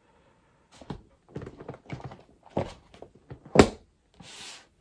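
Paperback books being handled and set down: a string of light taps and rustles, a louder thunk about three and a half seconds in, then a short papery slide.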